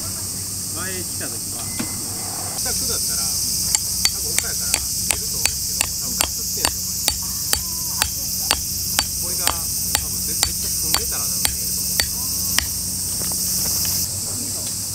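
A hammer driving a metal tent peg into hard, dry ground: about twenty sharp strikes, roughly two a second, beginning about four seconds in and stopping shortly before the end. A steady high buzz of insects runs underneath.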